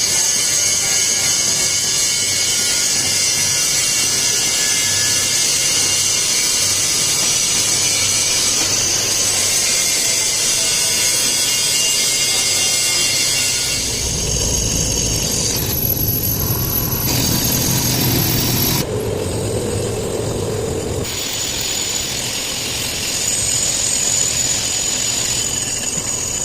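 Industrial workshop machinery running: a steady, loud mechanical din with a high whine, turning deeper and rumbling about halfway through, then shifting abruptly a few more times.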